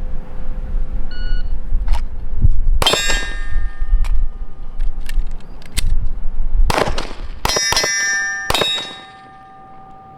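A shot-timer start beep about a second in, then a string of 9mm pistol shots from a Glock 19. The AR500 steel plates ring with a clang after the hits.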